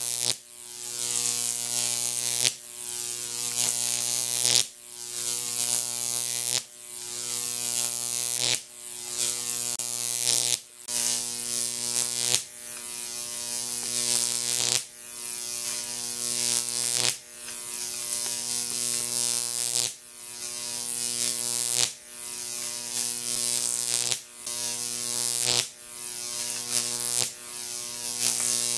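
Jacob's ladder arc from a 15,000-volt neon sign transformer buzzing as it climbs the copper electrodes, growing louder until it breaks and re-strikes at the bottom about every two seconds. A steady transformer hum runs underneath.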